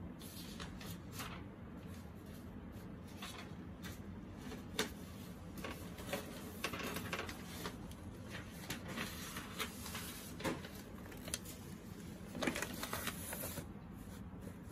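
A paper textbook being handled and its pages leafed through: irregular rustling of paper with a few sharp taps and knocks, the loudest near the end.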